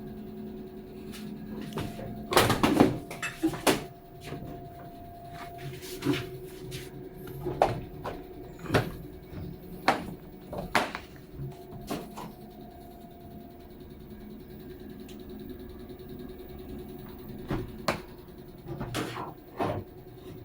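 Irregular knocks and clicks of hard objects being handled, loudest in a cluster two to four seconds in, over a steady low hum.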